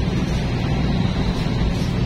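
Engine of a Chao Phraya express boat running under way, a steady loud rumble with a hiss over it.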